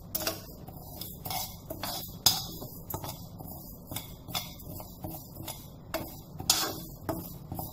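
A metal spoon scraping and clinking against a nonstick frying pan as dry split moong dal is stirred and roasted, the lentils rattling across the pan. Two sharper clinks stand out, about two seconds in and near the end.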